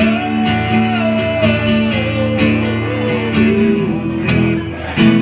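Live acoustic guitar strumming, with a long held melody note over it that wavers and slides slowly downward.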